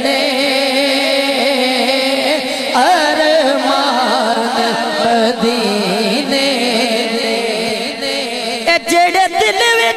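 Male voices singing a Punjabi naat: long held, wavering melismatic notes with vibrato and no clear words, a higher vocal line coming in about three seconds in and the phrasing breaking up near the end.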